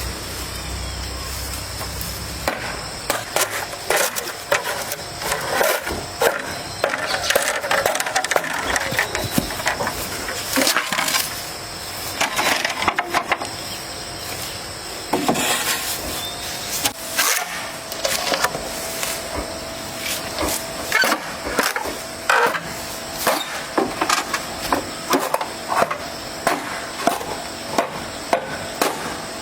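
Irregular knocks, taps and cracks in clusters, like hard material such as wood being handled or worked.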